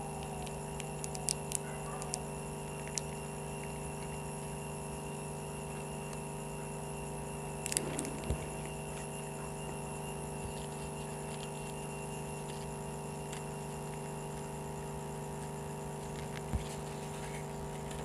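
Paper petals and a glue tube being handled: a few soft clicks and rustles over a steady background hum, several in the first few seconds, a brief cluster about eight seconds in and one more near the end.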